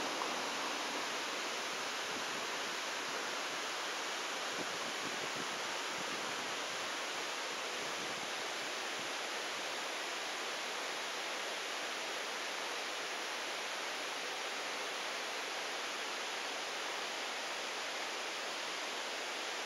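A steady, even hiss with no distinct sounds in it and almost no low rumble.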